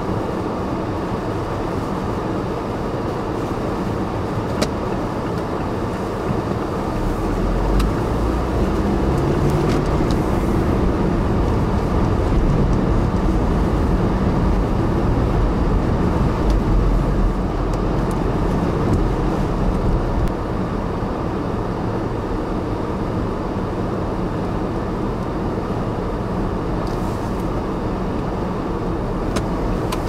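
Steady rush of blizzard wind and vehicle road noise while driving on snow-covered roads, with a deeper rumble that grows louder from about seven to twenty seconds in.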